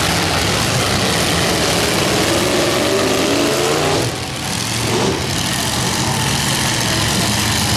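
Several demolition derby cars' engines running and revving together; one engine's pitch climbs over a couple of seconds, then the sound dips briefly before carrying on.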